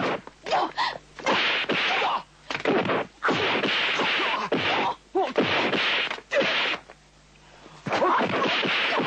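Kung fu film fight sound effects: a rapid string of dubbed swishes and whacking hits from punches and kicks, with short gaps between them, some with a brief shout.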